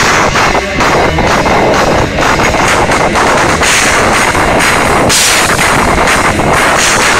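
Live rock band playing loud, with a dense wall of distorted guitars and drums. The amateur recording is overloaded and harsh, clipping throughout.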